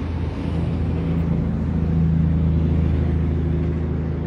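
A motor vehicle engine running with a steady low hum, swelling a little about two seconds in and easing off near the end.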